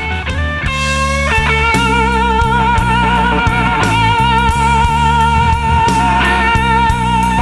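Blues-rock band music: an electric guitar climbs through a few quick notes, then holds one long note with wide vibrato for about six seconds over bass and a regularly struck drum kit. The music fades in at the start.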